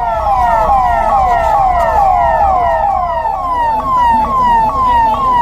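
Emergency vehicle siren sounding loudly in a fast repeating pattern, each sweep falling in pitch, about two a second, starting and cutting off abruptly.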